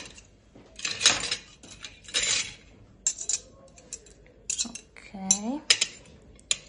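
Metal fork and spoon clinking and scraping against a ceramic plate and each other as a lime slice is handled: a string of irregular sharp clinks with a few short scrapes.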